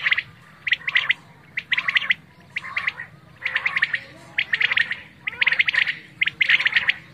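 Quail calling over and over: short bursts of rapid, clipped notes about once a second, several birds overlapping.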